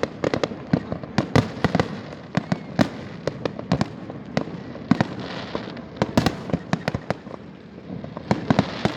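Fireworks display: an irregular run of sharp bangs from bursting shells, several close together at times, over a continuous crackling hiss.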